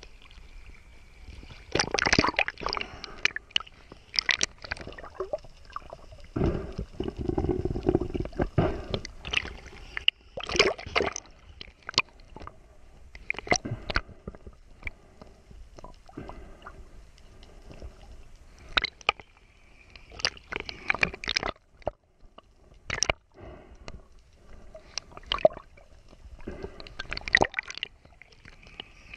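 Seawater sloshing and gurgling over a waterproof action camera bobbing at the surface, dipping under and breaking back out, with irregular splashes and sharp clicks of water on the housing.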